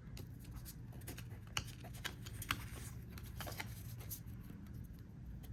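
Trading cards being handled, faint light clicks and rustles as they are sorted and flicked.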